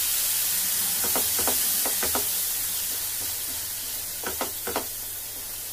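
Onion and spice masala sizzling in a hot nonstick frying pan just after a little water is poured in, a steady hiss that slowly dies down. A few short scraping strokes come as the masala is stirred with a silicone spatula.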